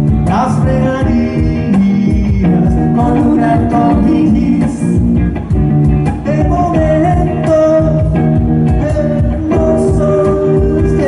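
Live band playing a rock song, with electric guitar, bass and drums keeping a steady beat and a sung melody line held over it.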